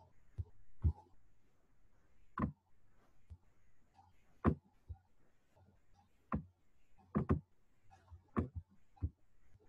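Computer mouse clicking at irregular intervals: about a dozen short, sharp clicks, some in quick pairs.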